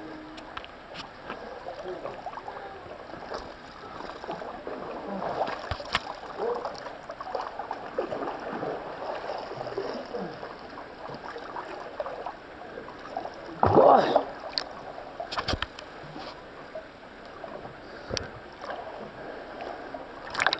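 Creek water splashing and sloshing as a canyoner in a wetsuit wades and swims through a shallow pool, with several sharp knocks from handling and one louder burst about two-thirds of the way through.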